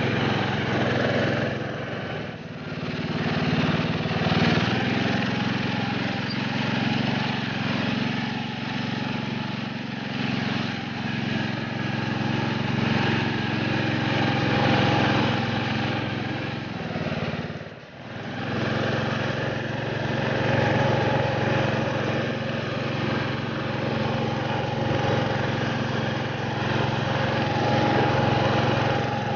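Lawn tractor's small engine running steadily under way through snow, dropping away briefly about two-thirds of the way through.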